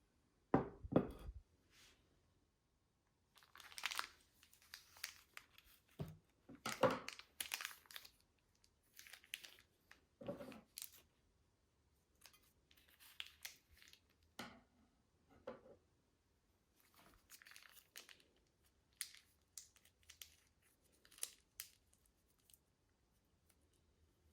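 Slime being mixed and handled by hand: irregular sticky crackling and tearing sounds in separate bursts, with a heavier low knock about a second in.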